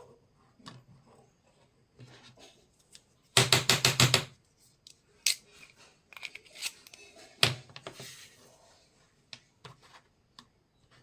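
Miniature toy kitchen set pieces being handled: scattered light taps and clicks, with a quick run of about eight loud clicks a little over three seconds in and another sharp click about seven and a half seconds in.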